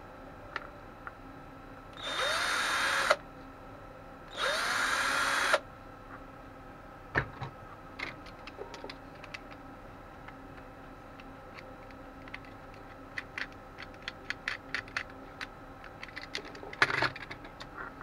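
Cordless drill run twice in short bursts of about a second each, each starting with a quick spin-up, then a run of light clicks and taps from handling, with a brief burst of noise near the end.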